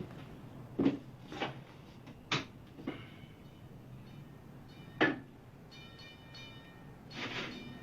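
A handful of sharp knocks and clicks at uneven spacing, with a brief faint ringing tone near the middle and a short scraping rustle near the end.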